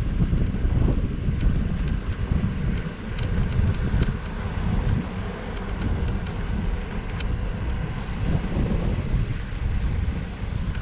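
Wind buffeting the microphone, a gusty low rumble, with faint scattered ticks.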